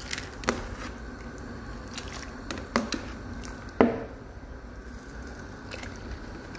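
Soaked rice and its soaking water poured from a bowl into a pot of boiling water, splashing and bubbling, with a few sharp knocks, the loudest about four seconds in.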